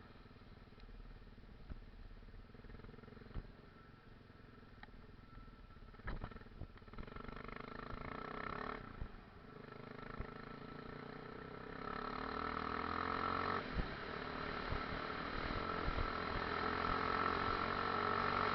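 Enduro motorcycle engine running while riding off-road, its revs rising and falling, with a dip about nine seconds in and louder running in the second half. Scattered knocks throughout.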